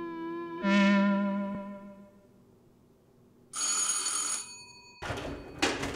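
Score music: a held, wavering electronic tone that changes note about half a second in and fades away. About three and a half seconds in, an apartment doorbell rings once for about a second, followed about five seconds in by a few scuffs and knocks.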